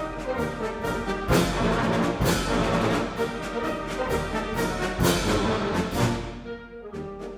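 Orchestral music led by brass, with a few sharp hits that reach across the whole range.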